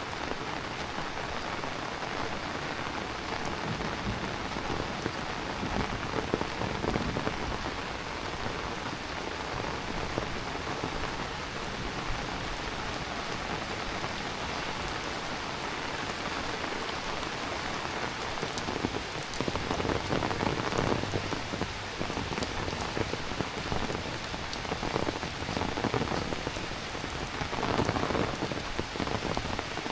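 Heavy rain falling steadily, a dense hiss of drops on surfaces that swells louder in patches in the second half.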